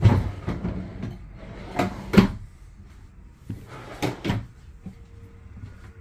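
Wardrobe drawer and cabinet doors being pulled open and pushed shut, giving a string of knocks and thuds. The sharpest comes about two seconds in, and two more come around four seconds in.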